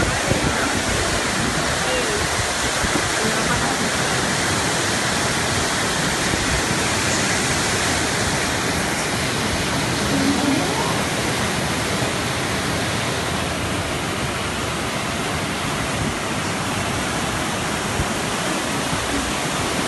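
Floodwater rushing fast down a street as a steady, loud torrent, mixed with the hiss of heavy rain.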